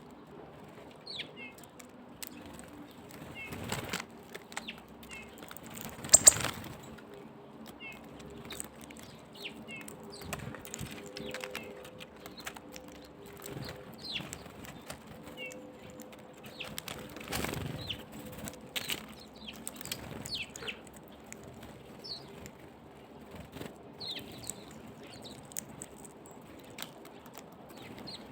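Small songbirds fluttering their wings in brief flurries, the loudest about six seconds in, among scattered short, high chirps and light taps.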